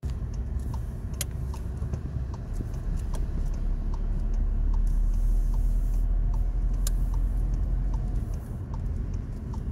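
Steady low rumble of a car heard from inside the cabin, with a turn-signal indicator ticking evenly, a little more than once a second.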